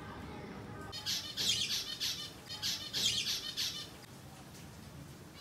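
Birds chirping in a quick series of high bursts over two or so seconds, starting about a second in, over faint background noise.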